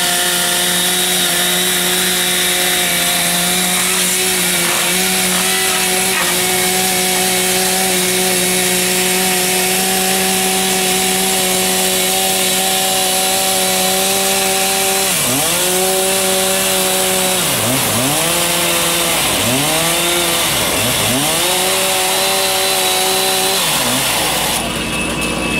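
Petrol chainsaw held at full throttle cutting through a wooden board, a steady high engine note. A little past halfway the revs drop and climb back several times in a row as the chain bites into the wood, and the engine stops near the end.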